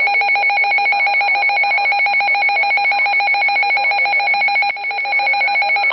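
A weather radio's electronic alert alarm: a loud, rapid pulsing warble that signals an incoming weather alert, here a tornado warning. It stops right at the end.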